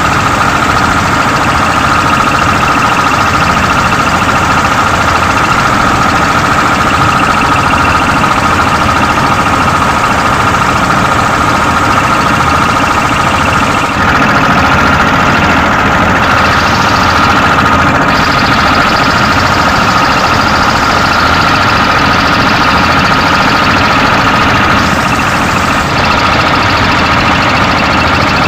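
Small wooden fishing boat's engine running steadily under way, with a constant high whine over a loud hiss. The hiss changes abruptly about halfway through and again near the end.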